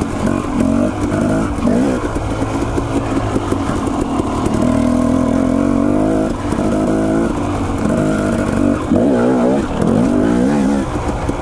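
Dirt bike engine under way on a trail, its pitch rising and falling again and again as the throttle is opened and closed, with quick on-off blips of the throttle near the end.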